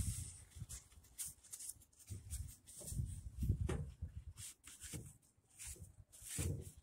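Irregular handling noises: a shop rag being rubbed, then the AMC 360 timing cover with its oil pump being lifted and shifted about. Soft low thumps come and go, with scattered light clicks.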